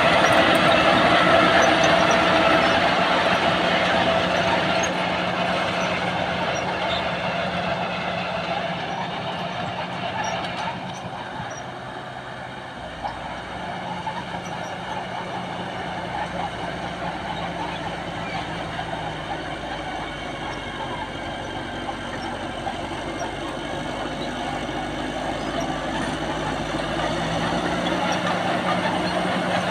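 A heavy vehicle running continuously, loud and steady with a held hum. It eases off toward the middle and builds up again near the end.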